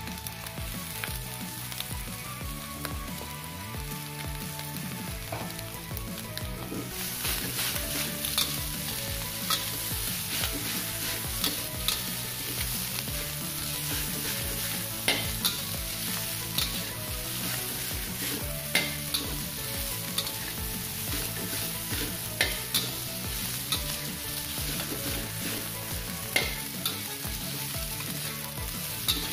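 Fried rice sizzling in a steel wok as it is stirred and tossed with a spatula, with sharp clacks and scrapes of the spatula on the wok about once a second. The sizzle grows louder about seven seconds in.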